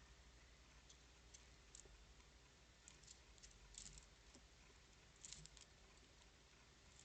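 Squirrels at a bird feeder: faint, irregular clicks and taps, a few in quick clusters, over a low steady hum of the camera's microphone.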